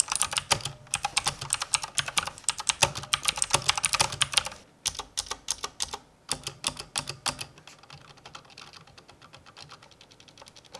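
Typing on a budget mechanical keyboard with updated Outemu switches, a sharp-sounding click on each key press. Fast, dense typing for about four seconds gives way to slower, softer key presses.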